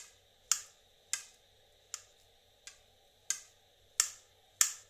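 Knife slicing a peeled banana into small pieces on a plate, the blade clicking sharply against the plate about every two-thirds of a second, seven times.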